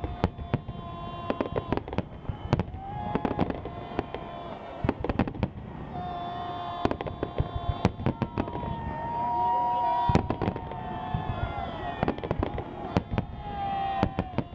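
Fireworks display: shells bursting in the sky, many sharp bangs in quick, uneven succession.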